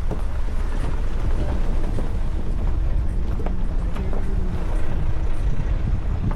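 Mahindra Thar driving off-road: a steady low rumble of engine and tyres, with scattered knocks and rattles from the rough ground.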